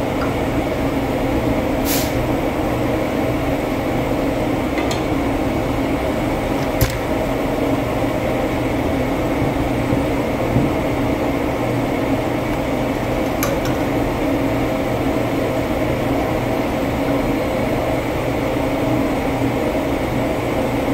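Steady drone of boiler-room machinery running, with a handful of sharp metal clinks as a black iron pipe nipple is threaded by hand into a feed water tank's float valve fitting.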